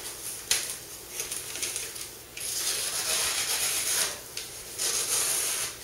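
Glossy magazine paper rustling and hissing as a freshly sharpened Kershaw folding knife slices through it, a paper-cutting test of the edge: two short cuts, then a long slice of about a second and a half, then another slice near the end.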